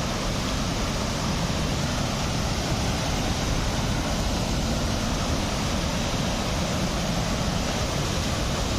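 Steady rush of water from a waterfall, with no change in level.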